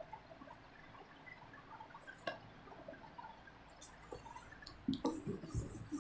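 Faint scattered ticks, then about four seconds in a duster rubbing across a whiteboard in quick back-and-forth strokes, erasing the marker writing.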